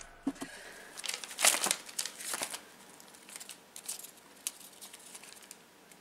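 Sticky-note paper rustling and crinkling as hands handle and press a folded stack of notes, in irregular bursts that are loudest in the first half and fainter after.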